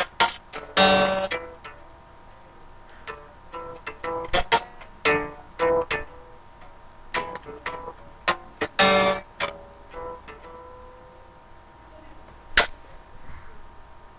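Electric guitar played in short, irregular phrases of picked single notes, with a couple of strummed chords and pauses between them. A single sharp click near the end.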